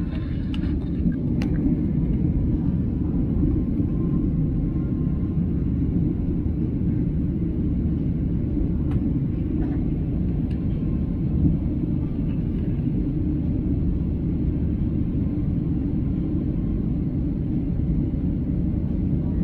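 Steady low rumble of an airliner cabin in flight, the engine and airflow noise heard from inside the cabin, with a few faint clicks.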